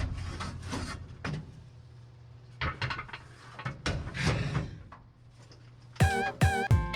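A few scattered light knocks and clunks, then music starts about six seconds in with a quick run of pitched notes.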